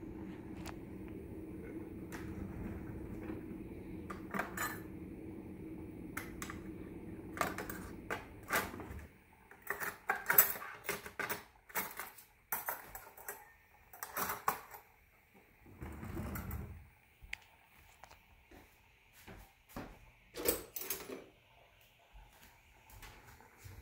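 Metal kitchen utensils and cookware clinking and knocking in irregular clusters, the sharpest around ten seconds in. Under the first clinks a steady hum runs, then stops about nine seconds in.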